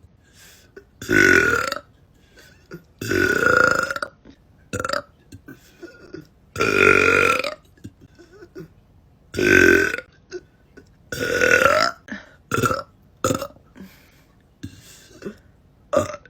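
A woman belching over and over: about five long, loud burps, each lasting up to about a second, with several shorter burps in between.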